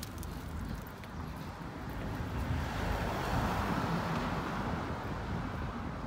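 A car driving past on the road; its tyre and engine noise swells to a peak about halfway through, then fades.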